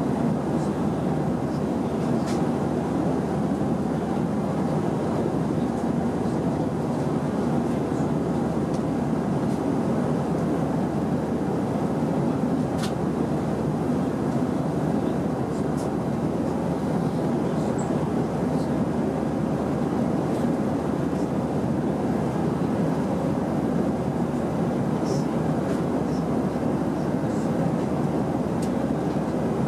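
Steady cabin drone of an Airbus A319 in flight: engine noise and airflow over the fuselage, even and unchanging, with a few faint ticks.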